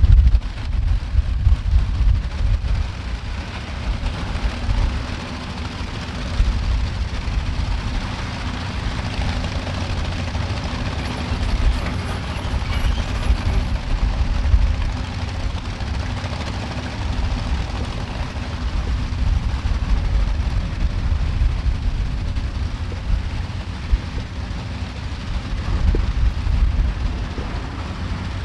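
Heavy mining machinery, dump truck and excavator diesel engines, running steadily as a low rumble, with an irregular low buffeting like wind on the microphone.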